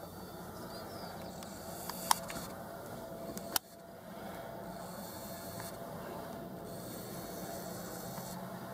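Faint steady background hiss, broken by two sharp clicks about two and three and a half seconds in, from fingers handling the camera; the level dips briefly after the second click.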